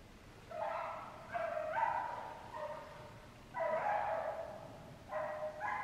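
A hog-hunting dog barking in a string of drawn-out barks, about seven of them. It is baying, the sign that the dog has found a hog.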